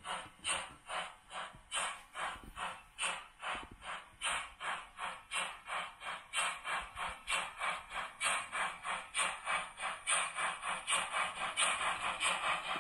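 Digital steam sound of a TT-scale Roco BR 44 model locomotive, played by an ESU LokSound 5 micro decoder through a small 11x15 mm speaker: rhythmic exhaust chuffs as the model runs. The chuffs quicken from about two to about three a second and grow louder toward the end.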